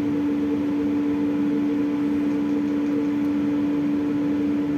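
Steady machine hum with one constant low tone over a faint noisy bed, unchanging throughout.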